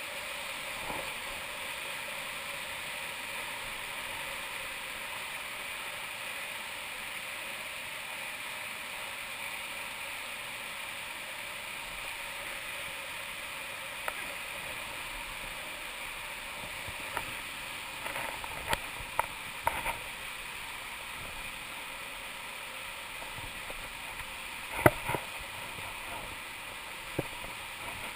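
Steady rush of white water tumbling down a rocky river cascade. Over it, a few sharp knocks and clicks come in the second half, the loudest about three quarters of the way through.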